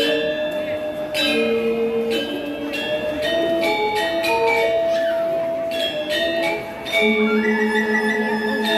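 Balinese semara pegulingan gamelan playing: bronze metallophones struck in quick, ringing melodic notes with sharp accents. From about seven seconds in, a held low note enters with a wavering high line above it.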